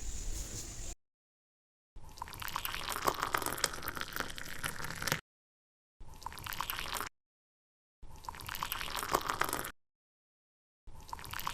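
Wet, crackly, sticky sounds of slime or its liquid ingredients being mixed and handled, full of small clicks. They come in four short takes, each cut off abruptly by silence.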